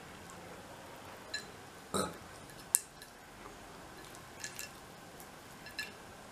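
Light clicks and taps of fingers and food against a glass plate while eating rice and fish by hand; a few scattered clicks, the sharpest a little under three seconds in. About two seconds in, a short mouth sound like a small burp.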